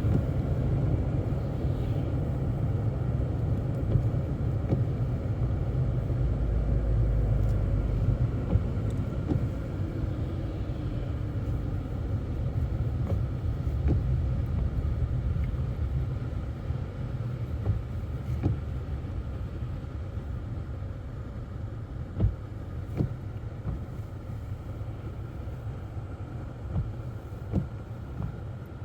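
Low road and engine rumble heard inside a moving car's cabin, heavier in the first half and easing later, with a few short knocks.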